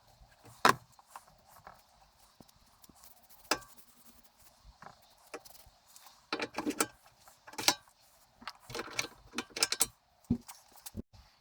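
Metal tools and parts being handled on a workbench: scattered sharp clicks and knocks, with two short runs of clattering and rattling in the middle and second half.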